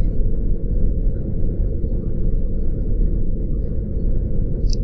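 A steady low rumble of background ambience, all of it deep in pitch and unchanging throughout.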